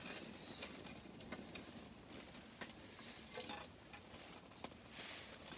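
Faint, scattered clicks and taps from handling food and utensils at a small camp grill, over a soft hiss.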